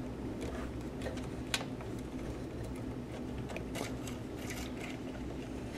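Faint clicks and rustles of insulated wire being handled and fed through a hole in a plastic alarm-controller housing, over a steady low hum.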